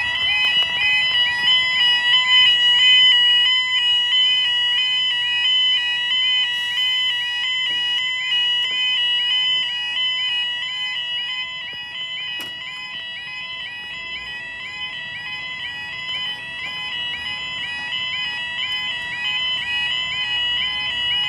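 UK level crossing yodel alarms sounding, a rapid repeating electronic warble, warning that the barriers are coming down. The alarm stops abruptly at the very end.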